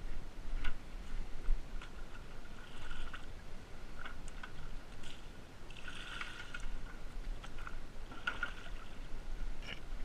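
Plastic bucket being dipped into a creek and filled with water, with a splash and gurgle around six seconds in and another near eight, among scattered clicks and knocks of the bucket being handled.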